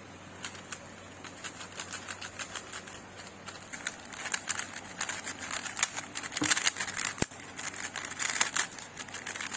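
Magnetic speed cube being turned rapidly by hand: a quick, irregular run of small plastic clicks and rattles, getting busier about halfway through.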